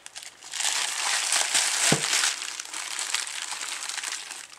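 Bubble wrap crinkling and crackling as a rifle scope wrapped in it is lifted out of its box and handled. It is loudest in the first half, with a soft thump about two seconds in.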